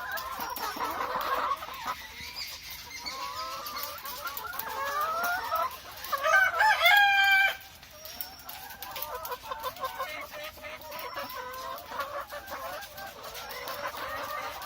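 A flock of BV380 laying hens clucking and calling over one another, with one loud drawn-out call about six and a half seconds in that lasts about a second.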